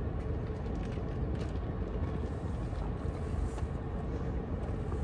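A car's air conditioning blowing steadily inside the cabin: an even rushing noise with a low hum under it.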